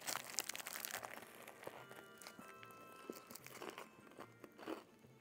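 A bite into a crispy breaded fried chicken sandwich: crunching in the first second along with a crinkle of its foil wrapper, then quiet chewing. Faint background music with a soft repeating beat runs underneath.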